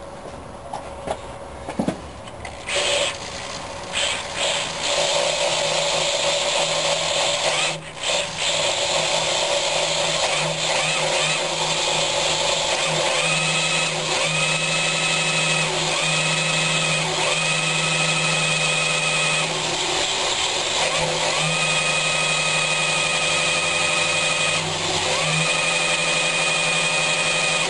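Electric drill turning an engine's oil pump through a modified distributor shaft to prime the engine with oil before first start. It starts about three seconds in, runs steadily with a brief dip near eight seconds, and a higher whine cuts in and out several times in the second half.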